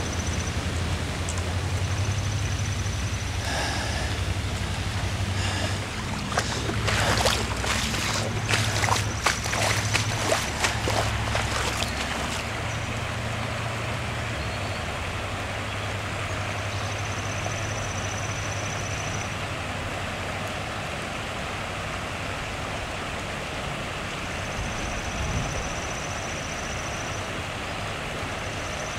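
Steady rush of floodwater, with low wind buffeting on the microphone. A run of sharp clicks and crackles comes between about 6 and 12 seconds in.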